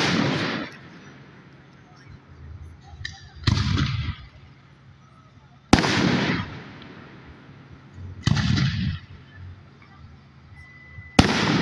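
Aerial firework shells bursting overhead: five booms about every two and a half to three seconds, each trailing off in a rumbling echo. The ones near the start, about six seconds in and near the end are sharp cracks; the two between are duller and softer.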